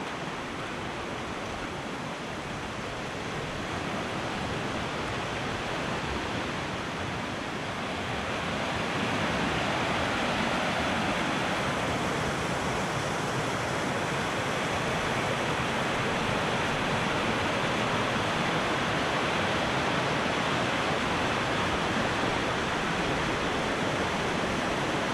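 Fast-flowing river water rushing steadily, growing louder about eight seconds in.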